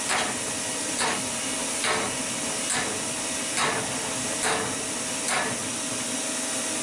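Homemade forge running with a steady hiss from its fire and air draft, swelling softly a little under once a second, while steel heats in it.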